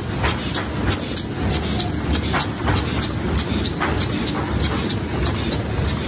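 YZFM-800SA automatic thermal film laminating machine running with a steady mechanical noise and an even clicking about three times a second.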